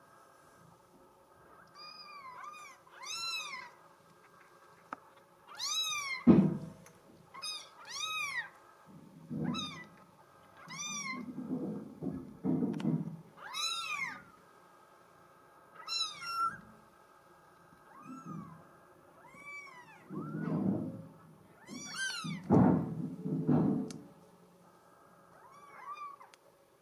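Newborn Bengal kitten mewing over and over in short, high-pitched calls, each rising and then falling, roughly one every second or two. Between the calls come bursts of lower, muffled noise and one sharp thump about six seconds in.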